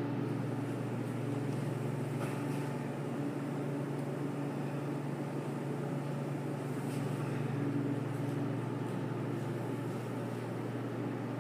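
Steady low mechanical hum of machinery running in the room, with a faint tone that fades in and out and a few light ticks.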